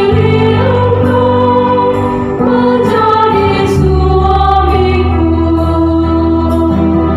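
Mixed choir of men's and women's voices singing a hymn in parts, accompanied by an electronic keyboard holding long bass notes that shift to a lower chord about four seconds in.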